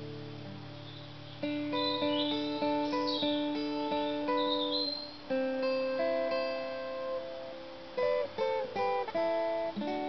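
Acoustic guitar playing an instrumental break: a chord rings out and fades, then a picked melody starts about a second and a half in, with a quick run of notes near the end. Birds chirp high above the guitar in the first half.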